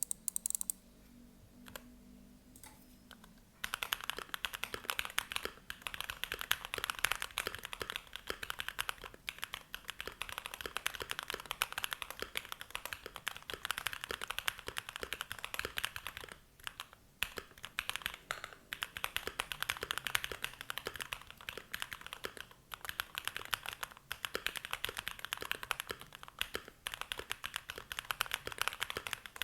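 Typing on a Keychron Q1 mechanical keyboard with lubed Durock POM linear switches and GMK Olivia cherry-profile keycaps, its case dampened with silicone and padding. A few separate keystrokes come first, then from about three and a half seconds in a fast, continuous run of key presses, broken by a couple of brief pauses.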